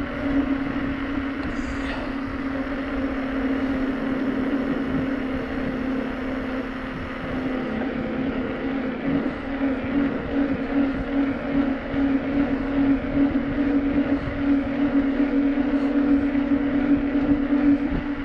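Bicycle riding along an asphalt road at an even speed: a steady hum of constant pitch, with wind buffeting the microphone.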